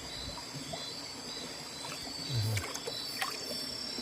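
Steady chirring of crickets and other night insects, with a few faint clicks and a short low sound about two and a half seconds in.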